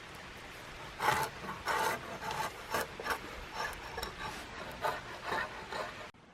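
A knife shaving a wooden stick into a peg: a run of uneven scraping strokes of the blade along the wood, starting about a second in and cutting off suddenly near the end.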